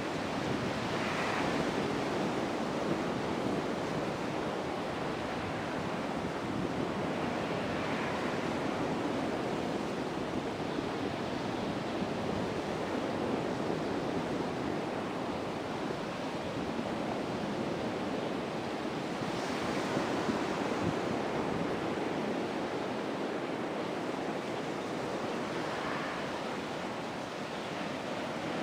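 Sea surf washing onto a beach, mixed with wind blowing across the microphone; a steady rush with a few soft swells that rise and fade.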